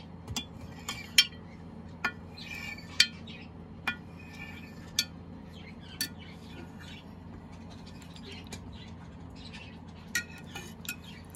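Metal knife blade clinking against a glass baking dish while cutting set jelly into cubes. The sharp clicks come about once a second, pause for a few seconds, then come as a quick cluster near the end.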